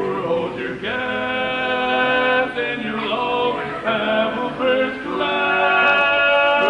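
Male barbershop quartet singing a cappella in close four-part harmony: tenor, lead, baritone and bass hold sustained chords that change every second or so, growing louder near the end.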